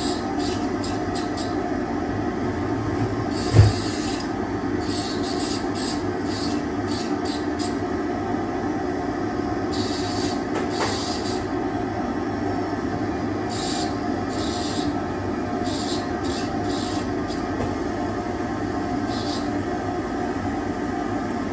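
Dental lab handpiece running steadily with a thin disc, grinding and trimming a milled Katana zirconia full-arch. It gives short scratchy bursts of grinding each time the disc bites into the chalky zirconia, over the continuous motor whine. A single sharp thump sounds about three and a half seconds in.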